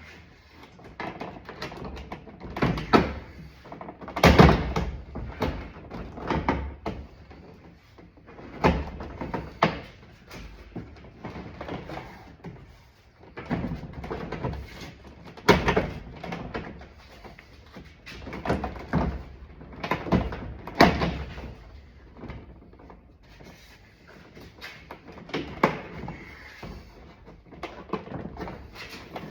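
Irregular clicks, clacks and knocks from a car door's latch and interior door panel being worked by hand; the latch snaps back into its slot each time it is released. The loudest knock comes about four seconds in.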